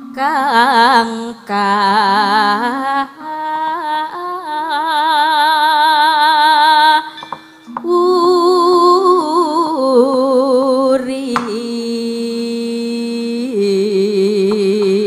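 Javanese singing in a wayang kulit performance: one voice drawing out long, ornamented notes with a wavering vibrato, breaking briefly about halfway, then settling into steadier held notes near the end.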